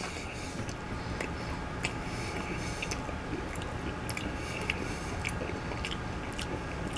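A person chewing a mouthful of sauce-coated fried chicken tender, with irregular soft wet mouth clicks and small crunches.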